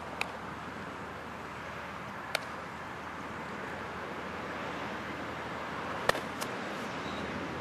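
Sharp cracks of a baseball being struck and caught during an infield fielding drill: one near the start, one a little past two seconds in, and the loudest about six seconds in with a lighter one just after, over a steady outdoor background hiss.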